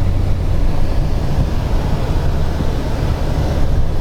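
Car driving steadily along a paved road, heard from inside the cabin: an even low engine and tyre rumble.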